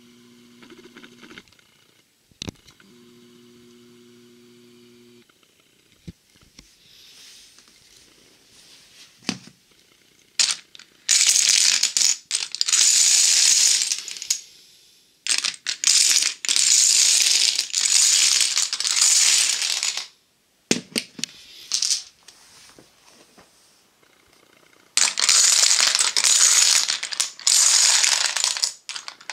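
Stacked Mexican train dominoes clattering down as their towers collapse and tiles pour onto one another, in three long bursts of several seconds each, the first about eleven seconds in, with scattered clicks of single tiles between them.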